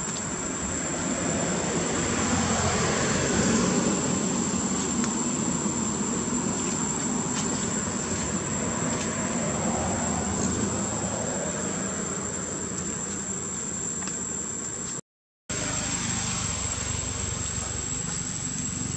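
Outdoor ambience: a steady high-pitched insect drone over a broad low rumble, which swells about two to four seconds in. The sound cuts out completely for a moment near the end.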